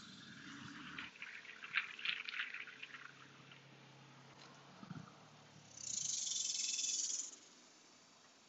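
Crackling footsteps over twigs and weedy ground. Then a loud high hiss lasts about a second and a half.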